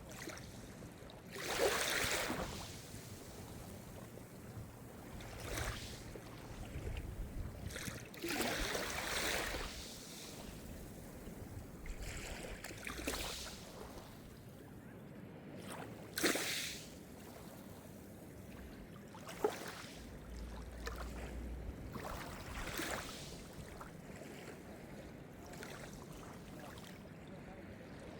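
Calm Mediterranean surf: small waves breaking and washing up the shore, a hissing swell every three to four seconds that fades away between them. The biggest waves come near the start and about a third of the way in, and a few short splashes stand out later on.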